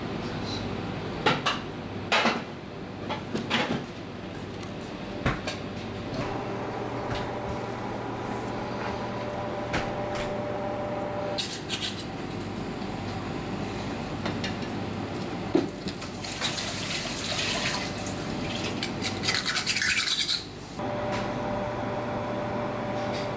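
Steady mechanical hum, with scattered sharp clicks in the first few seconds and again near the middle, and a few seconds of rustling and scraping in the second half. The hum cuts out partway through and returns near the end.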